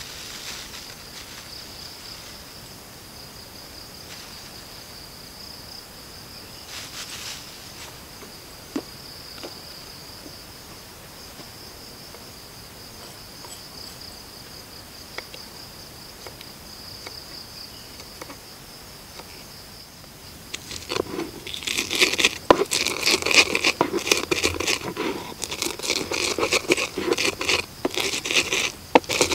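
Insects buzzing steadily on one high note. About two-thirds of the way through, a stone pestle starts grinding and knocking against a mortar in quick, irregular strokes, crushing chillies, garlic and shallots, and this is the loudest sound.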